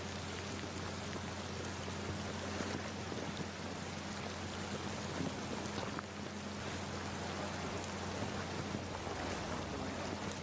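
Steady rain falling on flooded streets, an even hiss with a faint steady low hum beneath it.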